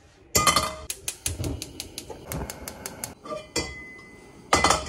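Stainless steel wok set down with a loud clang on a gas hob's metal pan supports, ringing briefly. A run of sharp metal clicks and knocks follows as it is handled, then a second clang near the end.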